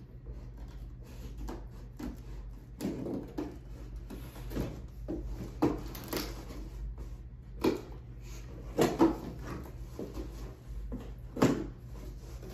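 A long cardboard shipping box being opened by hand with scissors: cardboard scraping and rustling, with about four sharp knocks as the box is handled against the table.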